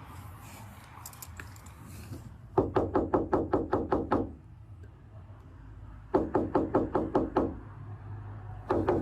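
Rapid knocking, three bursts of about ten quick, evenly spaced knocks.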